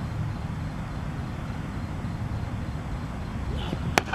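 Steady low outdoor rumble, then about four seconds in a single sharp crack of a cricket bat striking the ball on a full swing.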